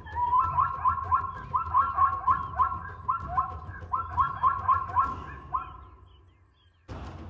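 Zebra barking call: a rapid run of short rising yelps, about four a second in several bunches, fading out about six seconds in.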